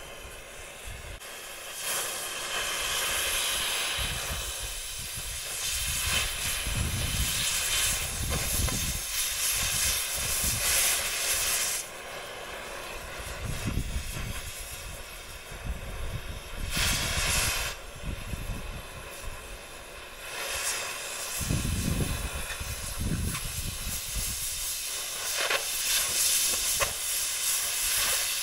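Oxy-fuel cutting torch hissing steadily as it cuts through the steel plate of an excavator ripper's mount. The hiss cuts off sharply and comes back a couple of times, and low gusty rumbling runs underneath.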